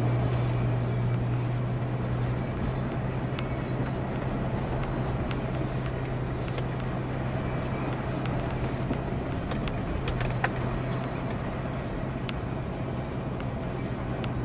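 Toyota FJ Cruiser's V6 engine droning steadily at low speed, heard from inside the cabin, with mud-terrain tyres rolling through mud and slush. Scattered small clicks and knocks, the sharpest about ten seconds in.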